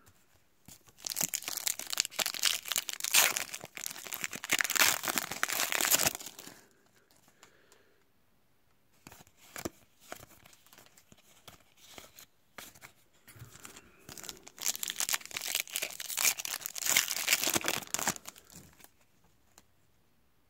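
Foil trading-card pack wrappers being torn open and crinkled, in two long crackling bouts, the first starting about a second in and the second about two-thirds of the way through. Between them come soft clicks of cards being handled.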